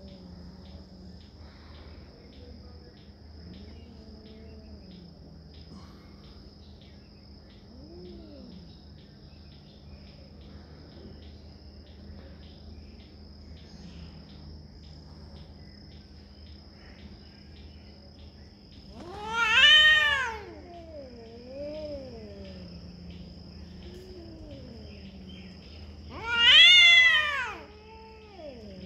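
A calico cat and a ginger tabby in a face-to-face territorial standoff, growling with long, low, wavering yowls. Twice, about two thirds through and again near the end, one lets out a loud, shrill caterwaul.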